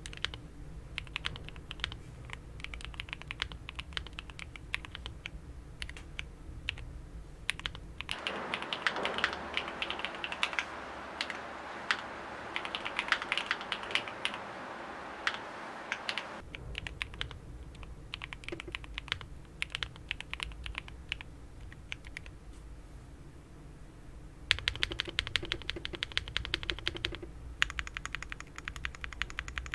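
Rapid typing on mechanical keyboard switches: a Gateron Quinn tactile switch sound test compared against other switches. The character of the clacking changes abruptly several times as the switch being typed on changes; one stretch in the first half is brighter and thinner than the rest.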